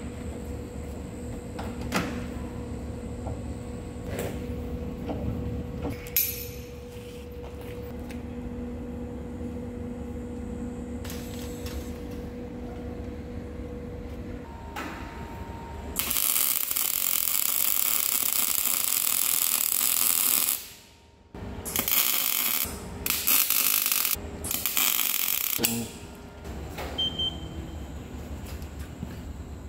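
Lathe running with a steady hum for the first half. After that come about four seconds of loud, even rushing noise, a sudden drop-out, then several short bursts of the same noise.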